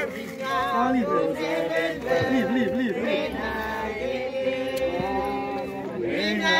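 Congregation singing a gospel hymn together, many voices overlapping.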